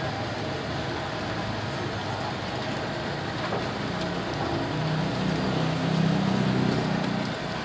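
Steady street traffic noise, with a vehicle engine growing louder and passing about five seconds in.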